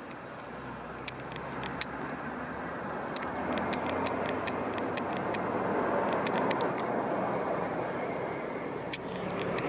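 A road vehicle going by: a steady rushing noise that swells over several seconds and is loudest about two-thirds of the way through, with scattered sharp clicks.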